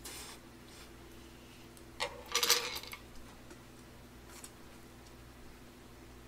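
A man eating noodles at a table: a click, then a short noisy slurping-and-handling burst about two seconds in. A steady low hum runs underneath.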